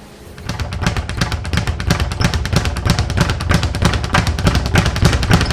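Music with a driving drum-kit beat and heavy bass starts about half a second in and plays on steadily.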